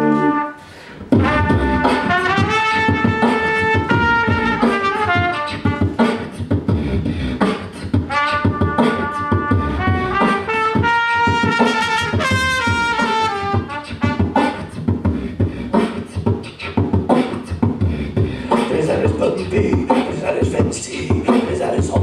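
Beatboxing into a microphone, a fast mouth-made drum beat through the PA, starts just after a short pause about a second in. A trumpet plays a melody over the beat for roughly the first two-thirds, and after that the beatbox goes on mostly alone.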